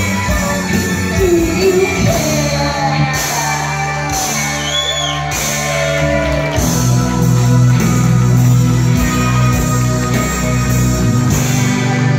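Live rock band playing: electric guitars, bass, keyboard and drums with a singer's vocal line over them. The voice drops out about halfway, and the band plays on with a heavier low end.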